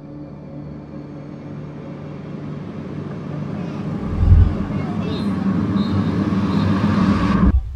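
A rush of noise that swells steadily louder, with a low thump about four seconds in, and cuts off suddenly near the end.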